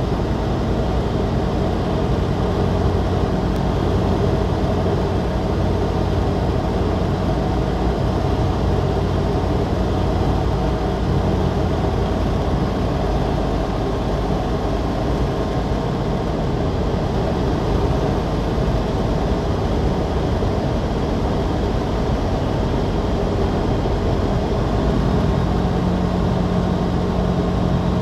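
Steady drone of a SportCruiser light aircraft's engine and propeller heard inside the cockpit, mixed with wind noise, during the descent on approach to land. A low hum in the engine note fades about twelve seconds in and comes back near the end.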